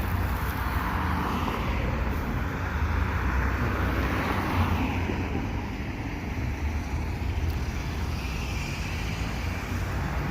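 Street traffic: motor vehicles passing, a steady noise with a low rumble that swells and fades slowly.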